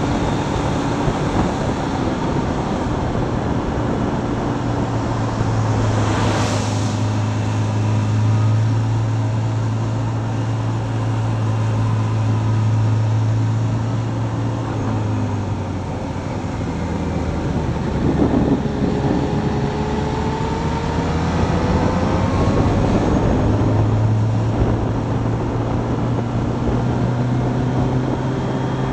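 Motorcycle engine running under way, heard from the bike with wind and road noise. The engine note holds steady, drops about halfway through, then climbs again as the bike picks up speed.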